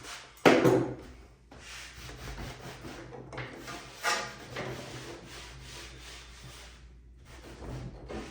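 A sharp knock on wood about half a second in, then a wet rag rubbing back and forth over a wooden drawer box in long strokes with short pauses, wiping off squeezed-out glue.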